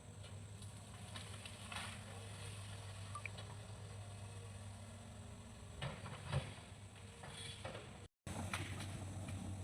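Hitachi excavator's diesel engine running with a steady low drone, with scattered knocks and creaks. The sound drops out for a moment about eight seconds in.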